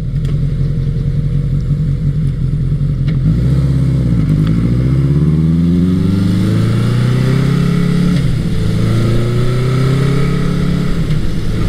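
1982 Honda CB900 Custom's air-cooled inline-four, breathing through an aftermarket MAC exhaust, running steadily for about three seconds and then accelerating with its pitch rising. The pitch drops briefly at an upshift about eight seconds in, then rises again.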